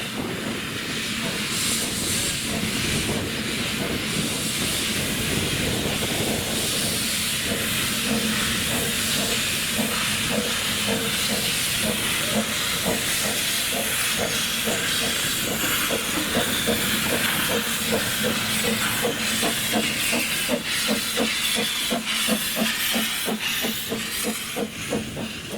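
Narrow-gauge steam locomotive hissing steam, with a regular beat starting about six seconds in and lasting nearly to the end as it moves off.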